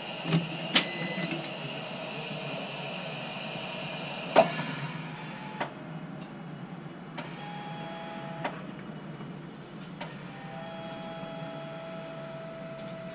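The LMTV's CTIS quick release valve hissing steadily as it vents air from the tires with the truck shut down, a sign that one of the wheel valves is bad. About four seconds in there is a sharp click and the hiss drops away as the truck is switched on and the valve closes. A few faint clicks and weak tones follow.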